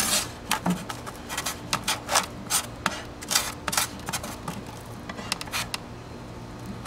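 Irregular clicks, taps and short scratches from gloved hands repositioning a steel ruler and marking with a paint marker on a block of Styrofoam. The sounds come thick for the first few seconds and then thin out, over a low steady hum.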